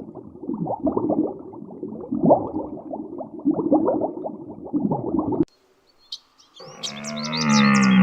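A muffled, dense run of short animal sounds that cuts off suddenly about five and a half seconds in. Then small birds chirp over a loud, drawn-out, low-pitched animal call that swells near the end.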